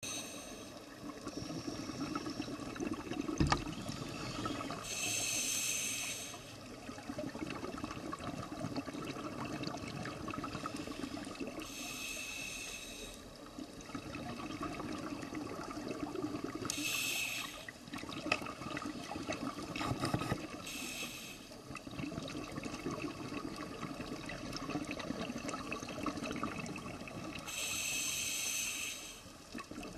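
Scuba diver breathing through a regulator, heard underwater: a hissing inhale about every six seconds, each followed by a longer rush of exhaled bubbles. A single sharp knock a few seconds in.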